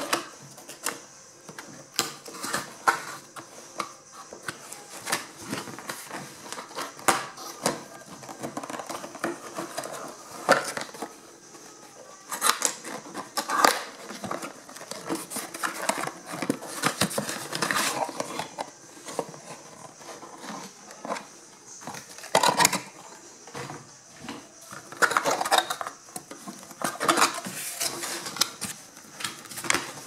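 Cardboard packaging being handled and opened by hand: a box slid out of its outer carton and its flaps pulled open, with irregular scrapes, taps and rustles.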